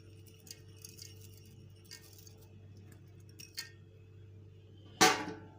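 A few faint light clicks and rustles as fried onions are scattered over rice in a cooking pan, then one loud, sharp clink with a brief ring near the end.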